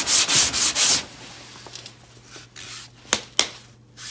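Hand block sanding with 180-grit paper on a sanding block across a car's curved steel body panel over cured filler and guide coat, in quick back-and-forth strokes about three a second that stop about a second in. Then a faint low hum and two sharp clicks close together near the end.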